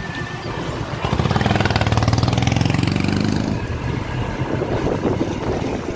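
A motor vehicle's engine running close by: a low, even engine note that swells about a second in, is loudest around two seconds and fades away after about three and a half seconds, over general traffic noise.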